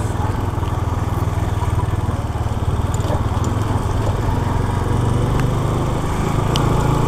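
Motorcycle engine running steadily while riding, with a finely pulsing low drone over a steady hiss of road and wind noise.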